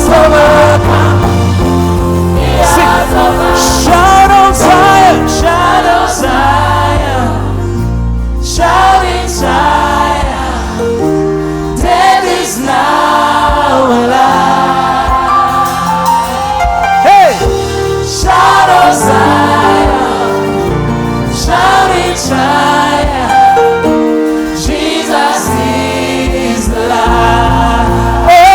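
Gospel worship music: a choir singing over a band with a steady bass.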